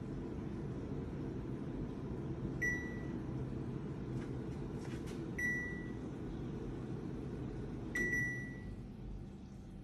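Kelon floor-standing air conditioner beeping three times, short single beeps a few seconds apart, each one the unit acknowledging an infrared command received from a phone-controlled Wi-Fi IR blaster. A steady low hum runs underneath.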